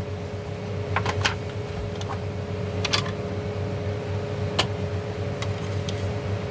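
Scattered light clicks and taps from small parts being handled while an emergency light's battery is replaced, about half a dozen spread irregularly, over a steady electrical hum.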